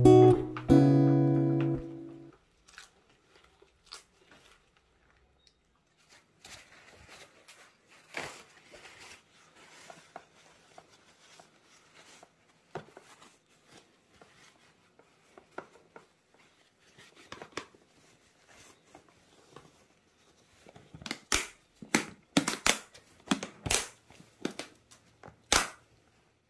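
Guitar music ends about two seconds in. Then come scattered sharp clicks, taps and short crunching sounds, louder and more frequent near the end.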